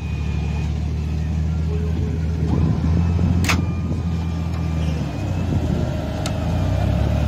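Toyota Land Cruiser 4x4 engine idling steadily, with a sharp click about three and a half seconds in.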